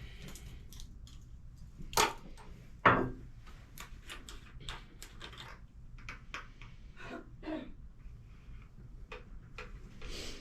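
A run of light clicks and knocks, with two louder knocks about two and three seconds in.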